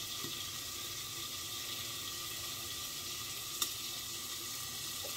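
Steady sizzling hiss of marinated chicken frying in olive oil in a covered kadhai, with a single light click about three and a half seconds in.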